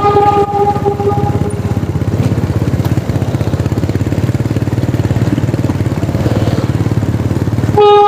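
Motor scooter engine running as it rides along, a fast low pulsing under road and wind noise. For the first couple of seconds a steady pitched tone sounds over it, then stops; it comes back just before the end.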